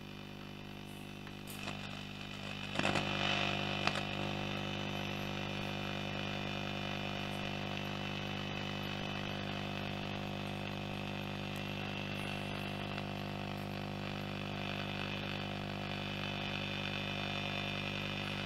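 Philips BF401A valve radio's loudspeaker giving a steady low mains hum under shortwave static and hiss while being tuned, with no station received. A few crackles come about two to four seconds in, where the sound gets louder. The hum is the radio's known low-frequency fault, which an added ripple filter on the audio valve's supply has not cured.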